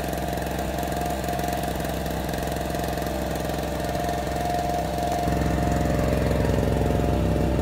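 Small Harbor Freight portable generator running steadily under the light load of a mobile ham radio rig. It gets a little louder about five seconds in.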